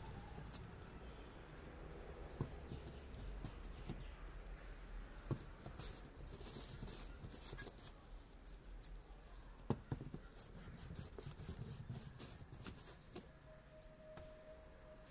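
Metal parts of a kerosene pressure lamp being handled and fitted together by hand: scattered light clicks, taps and scrapes of metal on metal, the sharpest about two and a half, five and ten seconds in.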